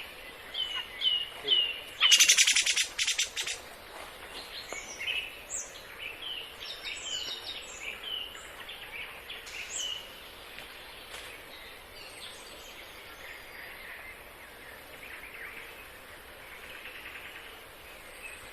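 Small songbirds calling: a run of short, repeated down-slurred chirps, with a loud, harsh rapid rattle lasting about a second and a half about two seconds in. The calls thin out and grow fainter after about ten seconds.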